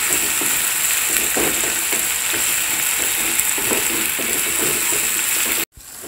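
Onion, ginger-garlic paste and tomato frying in oil in a nonstick pan, sizzling steadily, while a wooden spatula stirs and scrapes the pan in repeated strokes. The sound cuts off abruptly near the end and comes back much quieter.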